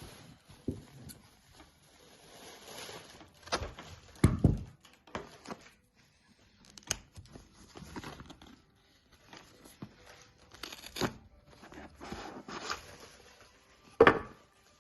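Packaging of a phone box being torn open and crinkled, with irregular rustling and a few sharp clicks or knocks, the loudest about four seconds in and near the end.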